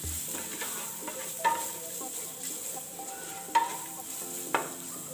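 Wooden spoon stirring onions, garlic and spices frying in oil in an aluminium pot, over a low steady sizzle. Three times the spoon knocks against the pot with a sharp clack that rings briefly.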